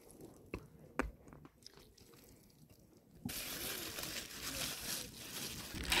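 Two sharp clicks, then from about three seconds in a steady crinkling rustle of the plastic bag wrapped around a raw chicken as it is handled and cut open.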